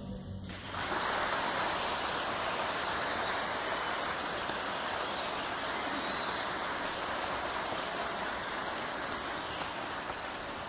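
A string orchestra's final chord cuts off about half a second in, followed by sustained audience applause that slowly fades.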